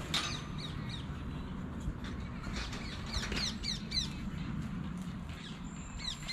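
Small birds calling in quick bursts of short, falling chirps, several times over, above a steady low rush of background noise.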